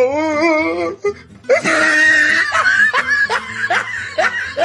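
A person laughing hard: a high, wavering laugh at first, then after a short break a breathy, rapid run of laughs.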